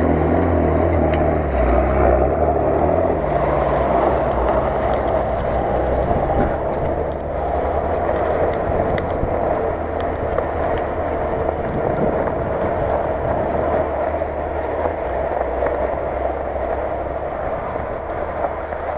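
Off-road vehicle engine running steadily under load, with a low rumble as the vehicles drive through snow.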